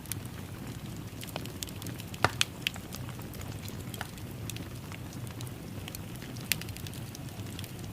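Wood fire crackling in a fireplace: a steady low rumble of flames with scattered sharp pops and snaps, the loudest a couple of seconds in and again near the end.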